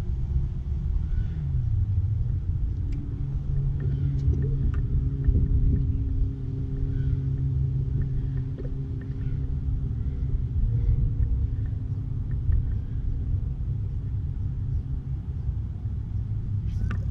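A steady low motor hum over a continuous rumble, with a few faint clicks.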